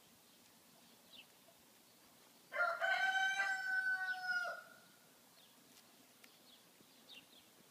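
One long animal call about two and a half seconds in, held at a steady pitch for about two seconds, then cut off; a few faint short chirps around it.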